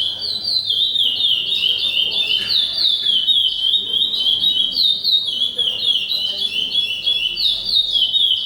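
A songbird singing one long unbroken song of rapid, high, down-slurred notes repeated in quick succession.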